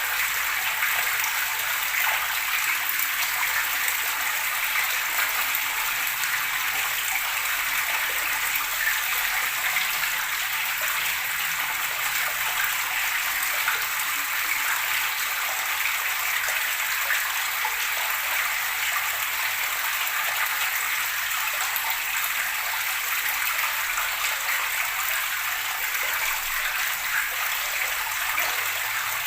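Running water gurgling and splashing steadily, an unbroken bright rush with no pauses.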